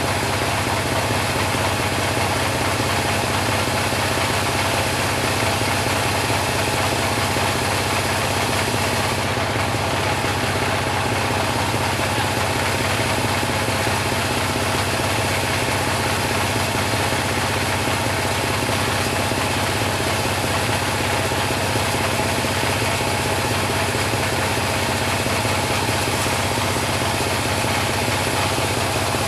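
Type 26 bandsaw mill running with a steady, even engine drone that holds level throughout.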